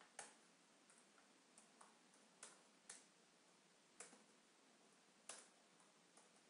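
Faint computer keyboard keystrokes: about half a dozen separate clicks at irregular intervals over a low steady hiss.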